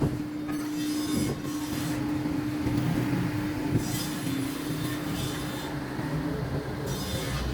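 A steady mechanical hum with a single held tone, which stops about six seconds in, over a low rumble.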